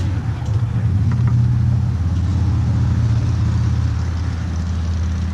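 A motor running with a steady, low hum.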